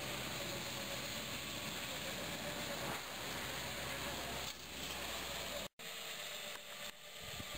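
Small electric walk-behind tractor running as it plows garden soil: a steady hiss-like noise with a faint hum. It cuts off abruptly about five and a half seconds in, then gives way to quieter, uneven noise.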